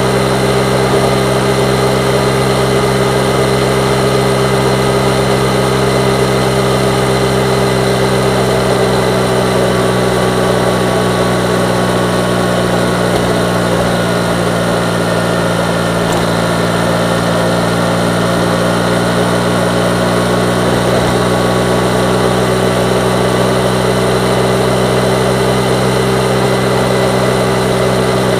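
Yamaha MT-09's inline three-cylinder engine running steadily on the road, with wind and road noise. The engine note dips slightly about halfway through and picks up again.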